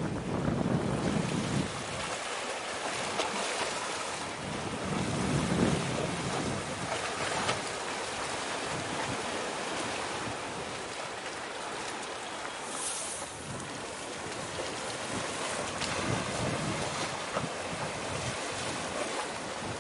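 Wind buffeting the microphone over a steady wash of sea waves, with gusts about five to six seconds in. No distinct engine or propeller sound stands out.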